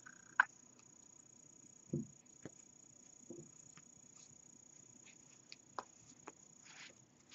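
Faint handling sounds of yarn and a stuffed crocheted toy being worked with a tapestry needle: light rustles and small clicks, a sharp click about half a second in and a soft low thump about two seconds in, over a faint steady high hiss.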